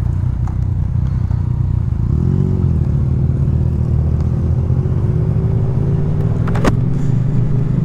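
Motorcycle engine running under way, heard through a helmet microphone: a steady low engine note that lifts briefly about two seconds in, then climbs gently in pitch, with one sharp click about six and a half seconds in.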